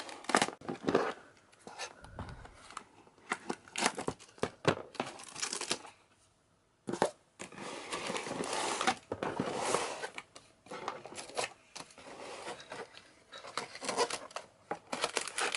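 Product box and its protective wrapping being pulled open by hand: tearing and crinkling of paper and plastic in irregular spells with sharp clicks, pausing briefly about six seconds in.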